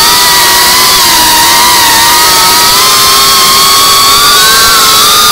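FPV quadcopter's electric motors and propellers whining loudly, heard from its onboard camera, several close pitches wavering up and down together with throttle changes as it flies low and fast.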